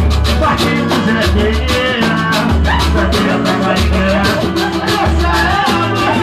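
A band playing with drums and percussion on a steady beat, with a voice singing over it.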